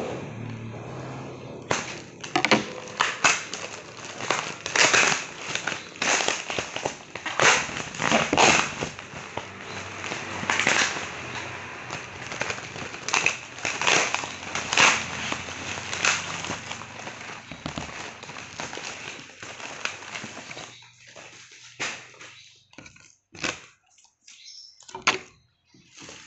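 Plastic packaging crinkling and crackling as it is handled: an inflatable air-column bag and clear plastic wrap being pulled off a box. Dense irregular crackles that thin out to a few separate ones near the end.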